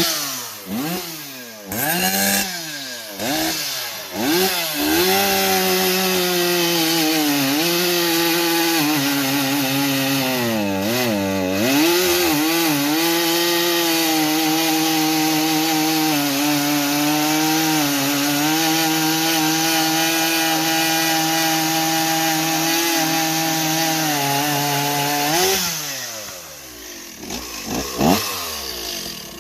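Stihl 038 chainsaw revved in several quick blips, then held at a steady pitch under load through a long cut in wood, lasting about twenty seconds with a brief dip in the middle. Near the end the revs rise and fall again, and there is one more short rev.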